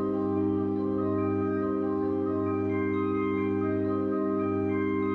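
Background music: a slow melody of held notes over a steady sustained chord. No firework bangs are heard.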